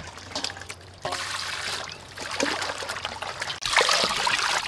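Water pouring from a plastic jug onto raw chicken wings in a steel bowl, splashing as hands wash the wings. It starts about a second in and gets louder near the end.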